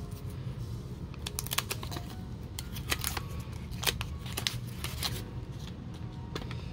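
Hands handling trading cards and a wax-paper card pack: scattered rustles, taps and clicks, busiest in the middle, over a steady low hum.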